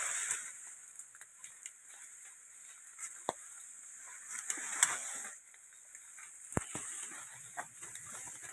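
Leaves and twigs rustling and snapping as an Asian elephant pulls at and browses on leafy undergrowth, with scattered small crackles and a couple of sharper snaps.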